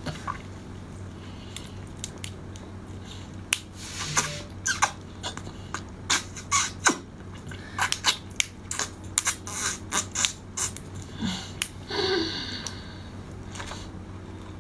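A person sucking hard at the shell of a large raw tiger prawn to draw out its meat: a run of short, sharp, wet sucks starting a few seconds in and going on for several seconds.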